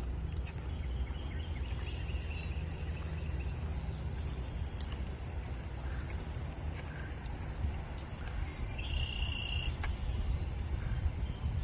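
Outdoor ambience: a steady low rumble with birds calling now and then, a few short high chirps and one longer call near the end.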